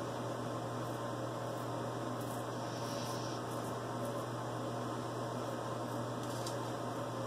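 Steady low hum and hiss of room noise. Over it come a few faint, short scrapes of a razor cutting stubble on the upper lip.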